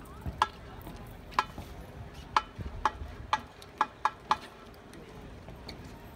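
Sharp, pitched percussion clicks from the marching band: about eight strikes that speed up from one a second to two and then four a second, over a low background murmur.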